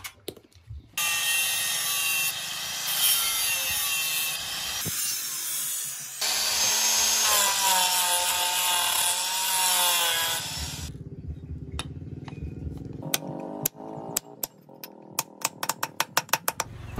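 Electric angle grinder with a sanding pad running against a wooden knife handle, its whine dipping and rising as it is pressed into the wood. Near the end, a quickening run of sharp knocks as the handle is struck down onto the blade's tang.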